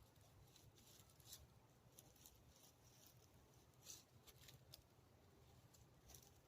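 Near silence, broken by faint scattered light ticks and rustles, about a dozen of them, the clearest about four seconds in.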